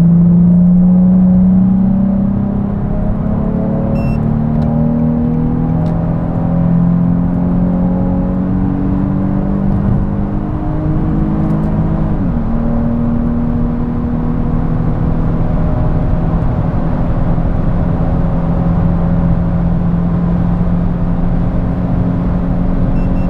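Nissan 350Z's 3.5-litre V6 with an aftermarket exhaust, heard from inside the cabin at full throttle under automatic kickdown. The engine note climbs steadily. About twelve seconds in, the automatic upshifts from third to fourth with a big drop in revs of about 1500 rpm, then the note climbs slowly again.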